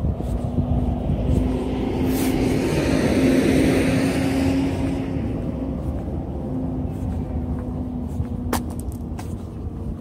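A car driving past: a steady engine hum under tyre and road noise that swells to a peak a few seconds in, then fades away.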